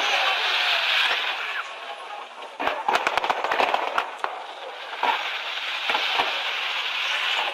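Fireworks going off from a tower: a dense crackle with many sharp cracks and pops, coming fastest about three seconds in.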